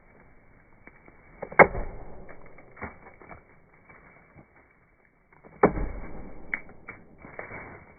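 Axe, an Origin Knives Bushcrafter used without its splitting head, chopping into a standing beech trunk for the face cut. Two heavy strikes come about four seconds apart, one a little after a second in and one near six seconds, with lighter knocks between them.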